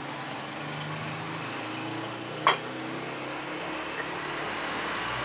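A metal fork clinks once against a ceramic plate about halfway through, over a steady low hum.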